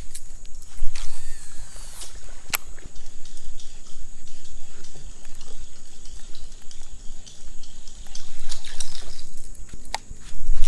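Water dripping and splashing close by, with scattered sharp clicks and knocks, over a steady high-pitched tone.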